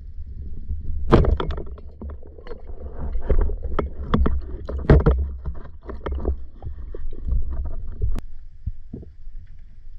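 Underwater sound through a camera housing: a steady low rumble of moving water, with a busy run of clicks and knocks from the diver's movement near the bottom and one sharp click near the end.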